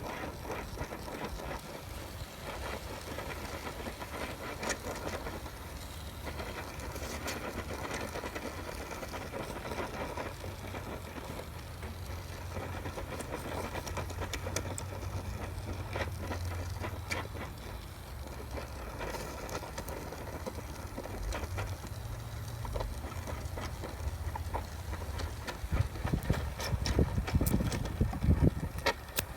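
Gas torch flame burning steadily with a low rumble and hiss as it heats the aluminium transmission case for brazing, which is not yet hot enough. Near the end, a run of louder, irregular knocks and scrapes.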